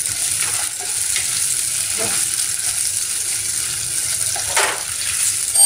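Chopped onion, green chillies and capsicum sizzling in oil in a kadai over a high gas flame, stirred with a wooden spatula that scrapes the pan, with a louder scrape near the end.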